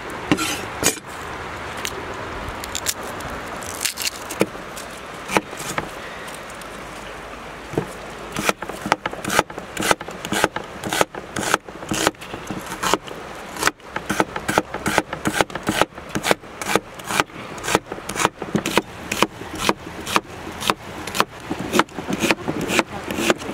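Cleaver chopping an onion on a wooden cutting board. There are a few scattered knocks at first, then from about eight seconds in a steady run of chops, about three a second.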